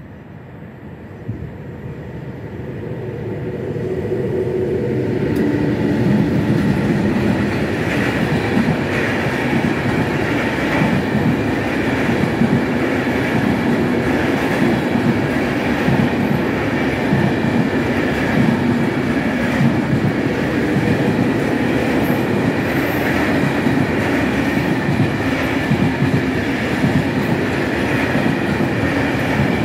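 Freight train of container wagons rolling over a level crossing, wheels clattering over the rail joints. The sound builds over the first few seconds as the train arrives, then stays loud and steady as the wagons pass.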